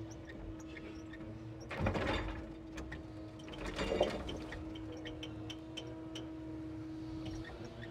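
Timber truck's hydraulic loader crane at work: a steady hum from the engine driving the hydraulic pump, with two clunks as the grapple handles logs, about two and four seconds in, and light clicks between.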